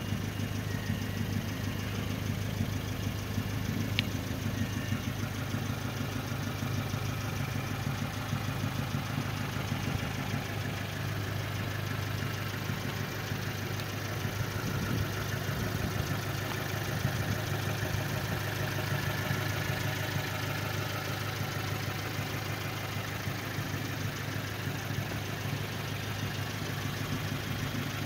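Fiat 500 Abarth's turbocharged 1.4-litre four-cylinder engine idling steadily.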